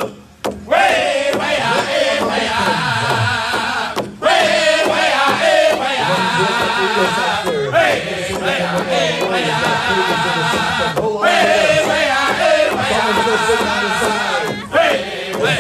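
Powwow drum group singing a grand entry song in high voices while beating a large shared drum together with padded sticks. The singing breaks off briefly between phrases several times.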